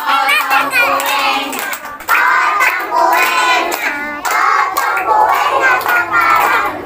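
Group of voices, children among them, singing together while hands clap along.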